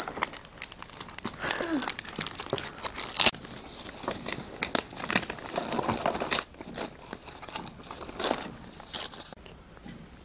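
Plastic gift wrappers and a paper envelope crinkling and tearing as they are handled and opened, in dense irregular crackles that die down about nine seconds in.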